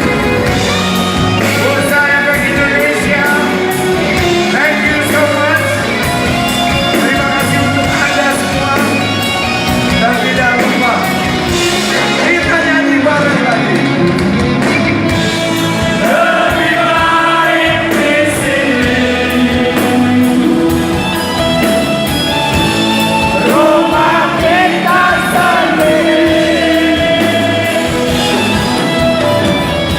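Rock band playing a song with singing.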